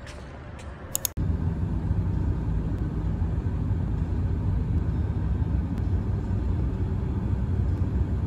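Car cabin road noise at highway speed: a steady low rumble of tyres and engine heard from inside the moving car. It starts abruptly about a second in, after a quieter stretch broken by a few sharp clicks.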